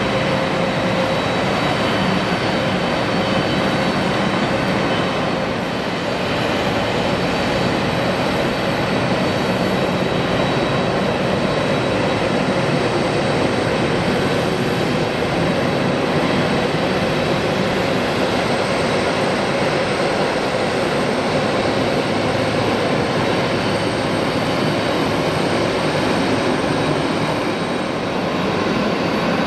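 Steady jet engine noise of a Boeing 767, a constant rush with faint steady whining tones and no marked change.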